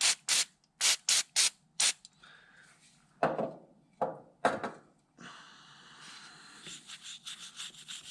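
Aerosol brake cleaner sprayed in about six quick spritzes, then a toothbrush scrubbing a metal hydraulic latch part, with two louder strokes and then steady scrubbing.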